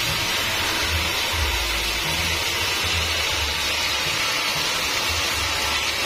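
Background music with a pulsing bass line, over the steady hiss of a bandsaw mill cutting an acacia log.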